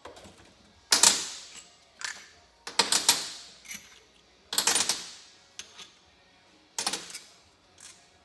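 Metal tools and bolts clattering on a steel workbench: about six sharp, rattling clanks, each dying away quickly, with short quiet gaps between them.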